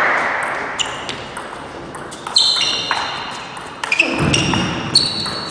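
Table tennis rally in a sports hall: the plastic ball clicks off paddles and table at an irregular pace, each hit ringing briefly with a high ping in the hall's echo. A short low thump comes about four seconds in, and a hiss fades away over the first second.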